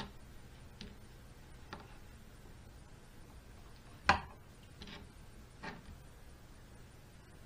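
Kitchen knife and hands working a squirrel carcass on a plastic cutting board, making a handful of short taps and clicks, with one sharper knock about four seconds in.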